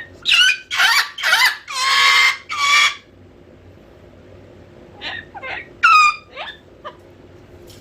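Cockatoo calling loudly out of boredom: a run of about five loud calls in the first three seconds, a pause, then a second run of shorter calls, one of them rising sharply in pitch.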